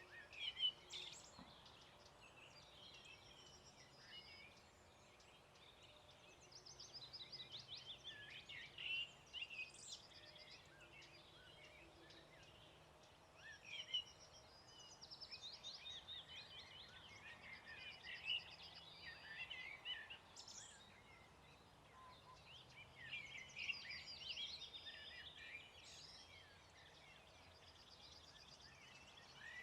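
Several songbirds singing together in a faint dawn chorus, with overlapping chirps and rapid trills.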